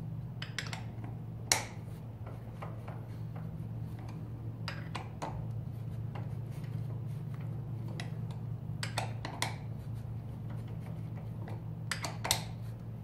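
Scattered metal clicks and clinks of hand tools working a bicycle crank arm and its crank bolt, the sharpest about a second and a half in, over a steady low hum.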